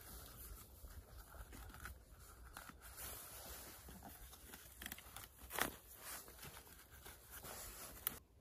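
Cloth seat being handled and pulled over the ends of a wooden stick stool: fabric rustling and scraping with scattered light clicks and knocks, a louder one about halfway through and a sharp click near the end.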